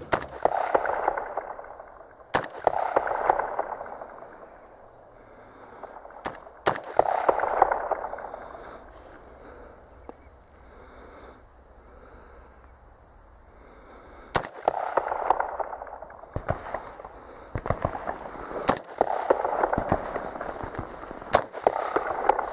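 Oberland Arms OA-15 AR-15-pattern semi-automatic rifle firing about nine single shots at uneven intervals, each shot followed by a fading echo.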